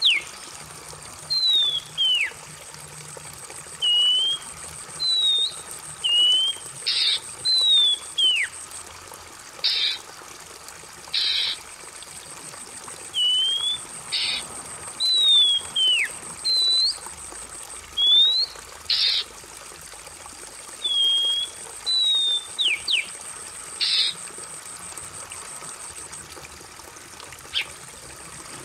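Oriental magpie-robin (kacer) singing: separate clear whistled notes that slur up or down, mixed with short harsh notes, every second or so, over a steady trickle of running water.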